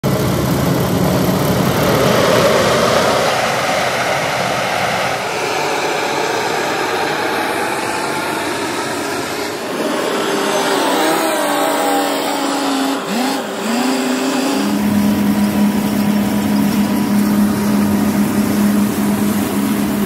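Heavy construction machinery running loudly, the sound changing at each cut. It starts as a steady roar. About halfway through, a diesel engine revs up and down as a wheel loader drives with a full bucket. In the last few seconds there is a steady machine hum with one held tone.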